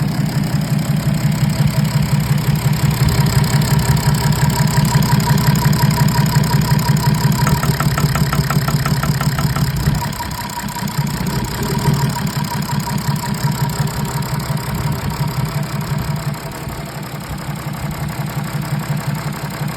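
BMW N57 straight-six diesel idling steadily on five cylinders with one injector unplugged. It is running evenly, a test to see whether the knock goes away with that injector disconnected. It dips briefly about halfway through.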